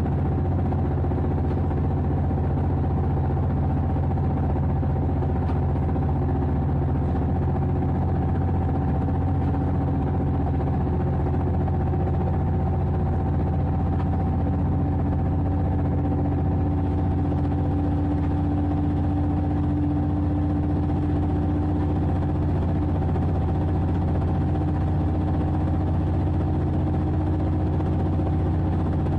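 Diesel-electric EURO 3200 locomotive running at a steady pace, heard from its cab: an even engine drone with a low hum and steady higher tones, one of which swells a little in the middle.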